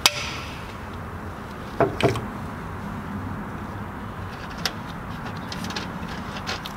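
Handling of engine parts on a workbench: a sharp click at the start, a duller knock about two seconds in as a diesel piston on its connecting rod is set down on a cloth, then light ticks from piston rings being picked up, over a steady low hum.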